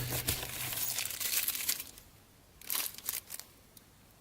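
Small plastic bags of press dies and fasteners crinkling as they are handled: about two seconds of rustling, then a shorter burst a little later.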